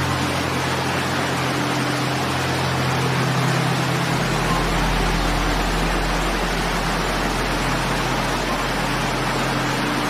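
River rapids rushing in a steady, even roar of white water. A low sustained music drone sits beneath it and shifts to a lower note about four seconds in.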